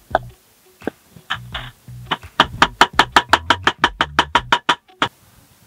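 A cleaver chopping rapidly on a wooden cutting board, about seven strokes a second for a couple of seconds, then stopping suddenly, after a few scattered clinks of a spoon in a steel bowl. Background guitar music plays throughout.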